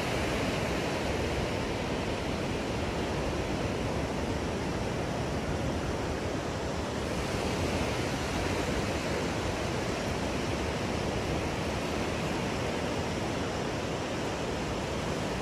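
Steady rush of ocean surf breaking on a sandy beach, mixed with wind.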